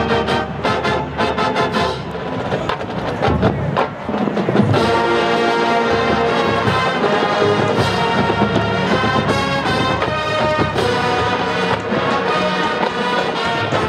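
Marching band playing brass and drums on the field. A softer passage with drum hits builds, and about four and a half seconds in the full band comes in loud, with sustained brass chords over percussion hits.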